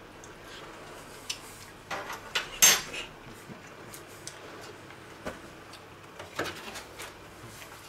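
Scattered light clinks and clatters of metal kitchen utensils against cookware, the loudest a sharp clatter about two and a half seconds in.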